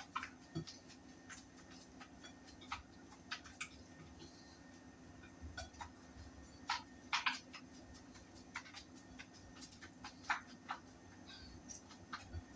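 Scattered light clicks and taps of a seasoning container being handled and shaken over fish, irregular and a second or two apart, over a faint steady hum.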